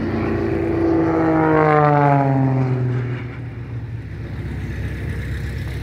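A propeller aircraft flying past, its engine note loud and dropping steadily in pitch as it goes by, then fading to a quieter low engine hum about three seconds in.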